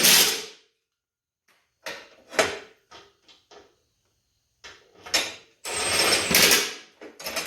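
Bolts on a lawn mower deck's spindle brackets being run down with a tool: several short, noisy bursts of metallic clatter and a few small ticks, with the longest burst, about a second, near the end.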